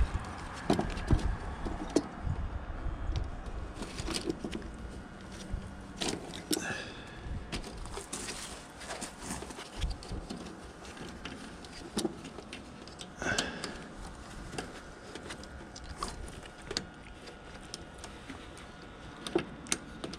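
Irregular light clicks, taps and metallic clinks of hand tools and parts being handled, scattered through with no steady rhythm.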